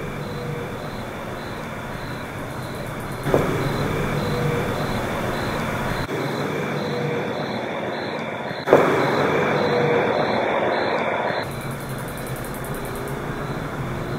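A faint, drawn-out moan heard several times over a steady background hiss; the hiss gets louder suddenly, each time with a click, about three seconds in and again about nine seconds in. The ghost hunters take the moan for a disembodied voice.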